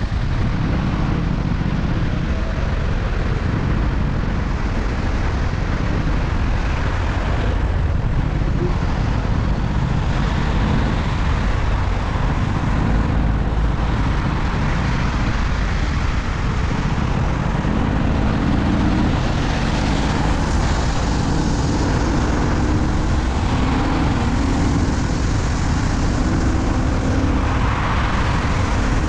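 Steady noise of a car driving: engine and tyre noise without a break.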